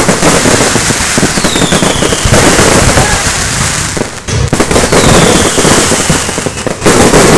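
Fireworks going off at close range: loud, near-continuous crackling and banging from bursting aerial shells and fountains, easing briefly around the middle before building again.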